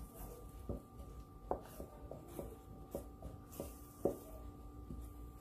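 Wooden spoon stirring and scraping scrambled eggs in a nonstick electric skillet, with irregular light knocks against the pan about two a second over a faint steady hum.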